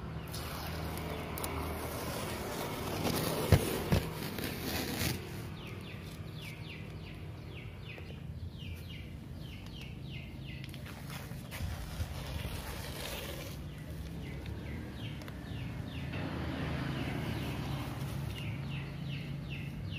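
Paper masking tape being peeled off a car's painted roof beside a freshly glued roof rail, in several long pulls, over a steady low hum.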